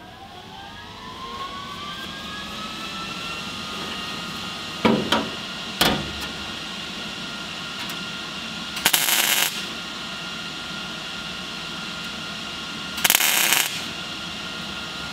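MIG welder tacking a patch panel into a 1959 VW single cab's front floor: four short bursts of arc crackle, the last two a little longer. A steady whine climbs in pitch over the first few seconds and then holds beneath them.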